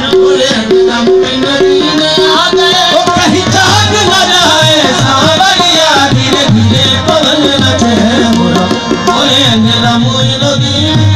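Live qawwali music, loud and steady: tabla drumming with a singing voice over it.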